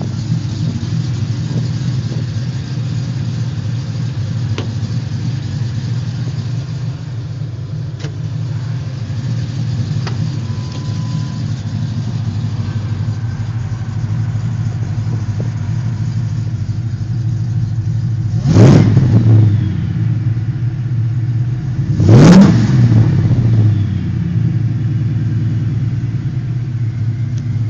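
Whipple-supercharged V8 of a Ford SVT Lightning pickup idling steadily, blipped twice to quick, short revs about four seconds apart in the second half.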